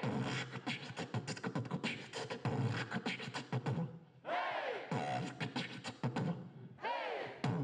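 Beatboxing into a handheld microphone: a fast stream of percussive mouth clicks and low beats, with swooping vocal sounds that rise and fall in pitch at the start, about four seconds in, and near the end.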